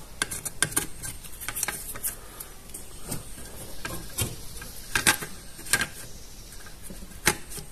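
Irregular light clicks and taps of a router's circuit board and plastic case being handled and worked loose, with a few sharper clicks about five, six and seven seconds in.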